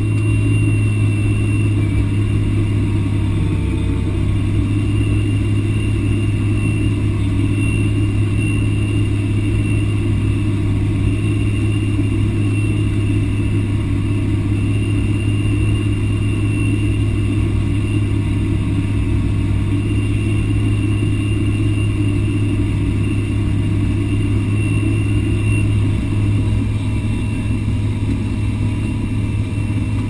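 Big articulated tractor's diesel engine, heard from inside the cab, running steadily under load while pulling a plough, with a deep constant drone and a faint high whine.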